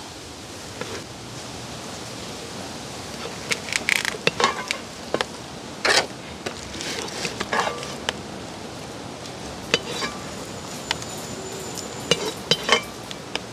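A serving spoon knocking and scraping against a black cooking pot and plastic food containers as food is dished out. The clicks and scrapes come in scattered groups, the loudest about six seconds in, over a steady background hiss.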